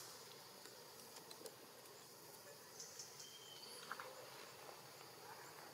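Near silence: a faint, steady insect chorus with a few scattered small clicks and short chirps.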